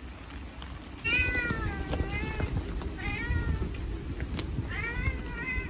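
Stray cat meowing three times, the first call the longest at about a second and a half, the other two shorter.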